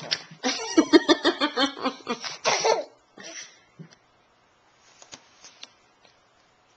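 A burst of laughter, rapid short pulses lasting about two and a half seconds, followed by a few faint short sounds.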